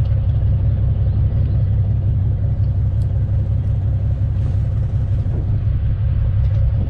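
Fishing boat's engine running steadily on deck, a constant low rumble with a faint steady hum above it.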